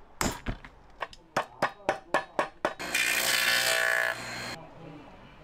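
A quickening run of about a dozen sharp clicks, as a hand tool is worked on a stitched leather soccer-shoe upper, then a spinning wheel grinding the lasting margin of a lasted leather shoe for about a second and a half, stopping abruptly.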